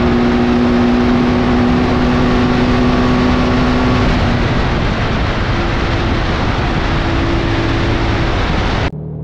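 Heavy wind rush on the microphone at over 200 km/h on a BMW R1300 GS, with the 1300 cc boxer twin's steady engine note underneath. The engine note weakens after about four seconds as the bike slows from top speed. Near the end the sound drops suddenly to a quieter, duller rush.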